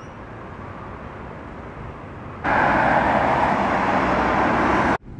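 Steady outdoor city traffic noise. About two and a half seconds in it jumps abruptly to a much louder rushing road and wind noise of a car on the move, which cuts off suddenly near the end.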